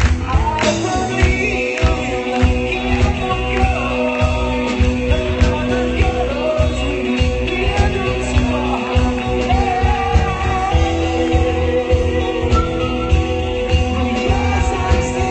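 Live rock band playing, with a male lead singer over electric guitar and drums, heard from the audience.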